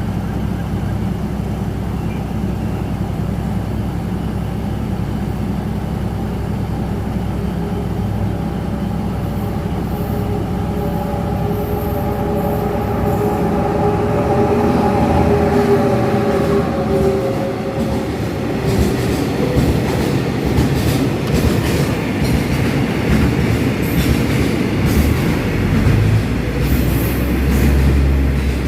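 Diesel freight train passing close by: a steady low engine rumble, a whining tone through the middle of the passage, then a rapid run of clacking as the wagons' wheels cross rail joints, louder in the second half.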